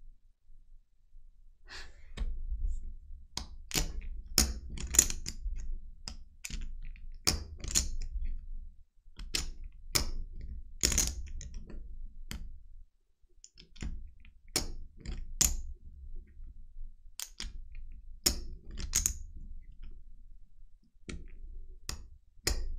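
Irregular sharp clicks and knocks, a few a second in loose clusters, over low thuds, as of hands working computer keys or desk objects. They start about two seconds in and pause briefly twice.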